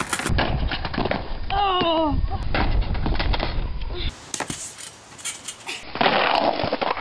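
Skateboards clattering and knocking as riders bail and hit the ground, with a low wind rumble on the microphone during the first few seconds and a brief shout about two seconds in.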